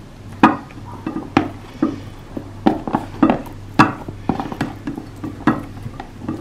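Silicone spatula scraping and knocking against a plastic container as cooked cauliflower florets drop into a bowl: a string of irregular knocks, about two a second, over a low steady hum.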